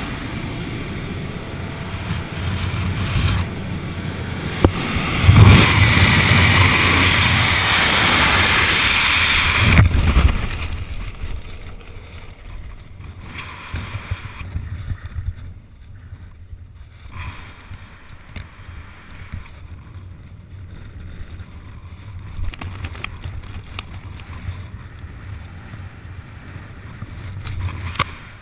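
Wind rushing over a skydiver's helmet-camera microphone in freefall, loudest from about five to ten seconds in. After about ten seconds it falls away to a softer, gusty rustle of air as the parachute opens and the descent slows.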